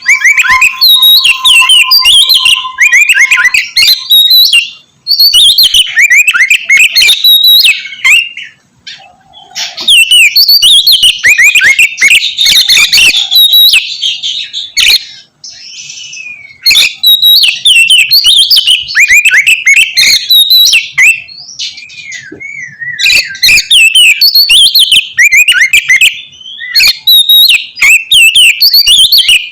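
Oriental magpie-robin (kacer) singing loudly in long phrases of rapid, sharp down-slurred notes, broken by a few brief pauses. A faint steady whistle-like tone sounds under the first few seconds.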